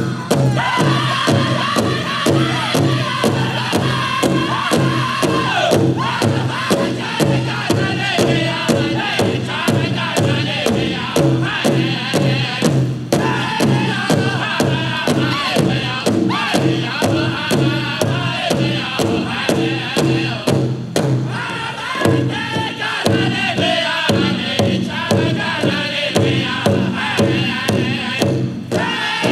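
Powwow drum group singing a contest song: a big drum struck in a fast, even beat under several voices singing together.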